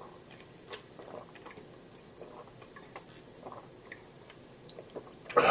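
A person drinking a glass of milk: faint gulps and swallowing clicks, then a loud breathy exhale near the end.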